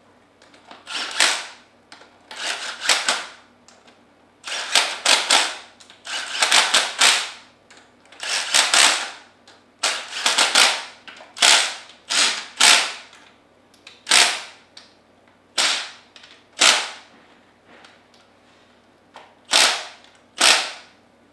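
Cordless impact driver hammering bolts down on a diaphragm pump's head, in a dozen or so short bursts; the later bursts are briefer and further apart as the bolts seat.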